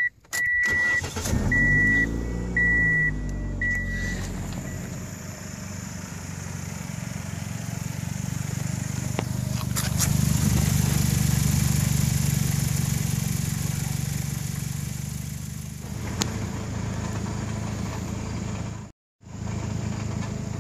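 Ford Escort's four-cylinder engine cranked and started while a dashboard warning chime beeps about five times, then running steadily. The engine's heat is baking the fresh exhaust putty and muffler-tape patch over the broken muffler pipe, and the exhaust runs much quieter for it.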